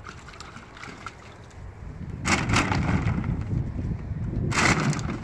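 Empty plastic water bottles crackling and clattering in a plastic kiddie pool as a puppy scrambles among them after a flirt-pole lure. There are two loud spells, the second shorter.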